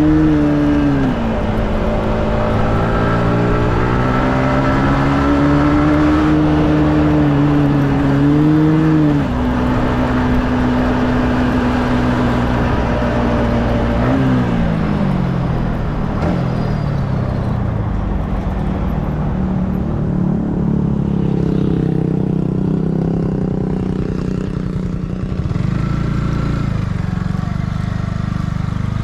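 Yamaha MT-15's 155 cc single-cylinder engine on the stock exhaust, heard while riding: the engine note rises and falls with throttle and gear changes. About nine seconds in the revs drop sharply, around fourteen seconds they fall away in steps, and afterwards it runs at lower, steadier revs.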